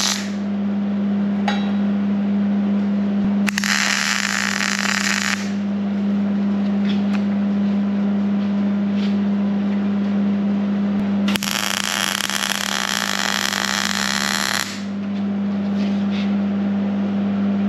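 Wire-feed welder arc crackling in two bursts: a short weld of about two seconds a few seconds in, and a longer one of about three seconds in the second half. A steady low hum runs underneath, with a few faint metal clicks between the welds.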